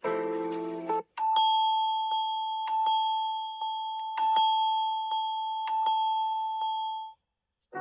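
Samsung Galaxy S23 ringtones played back. A melody ends about a second in, then a chime-like ringtone follows: one steady ringing tone with light strikes roughly every second, which cuts off abruptly near the end.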